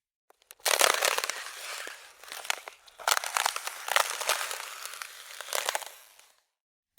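Ice cracking and crunching in two long runs of dense, sharp crackles, starting about half a second in and briefly dipping near the middle.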